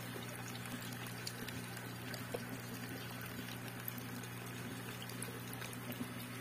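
Stock water running slowly into a fry tank, a faint steady trickle with small ticks and drips, over a low steady hum.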